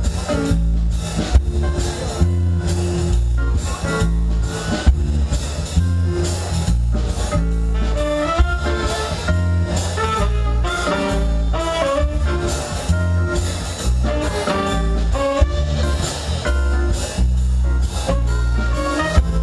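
A small jazz band of violin, saxophone, electric guitars, bass and drum kit playing live. The drums and bass keep a steady groove, and a melody line comes in on top about eight seconds in.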